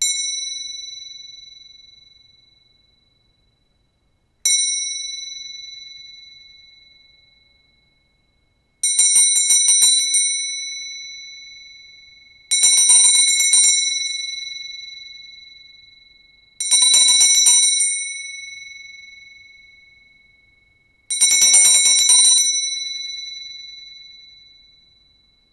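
Small hand-held bell with a wooden handle, rung with a single stroke and left to ring out slowly, then again the same way a few seconds later. After that it is shaken four times, each a quick run of strokes about a second long that rings down over several seconds.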